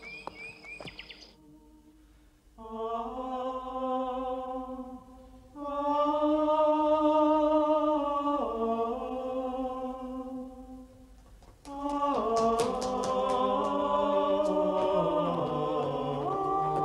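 Monks chanting in plainchant: long notes sung together in phrases with short breaks, the pitch stepping down partway through. About twelve seconds in, a fuller phrase begins with a lower voice part under it.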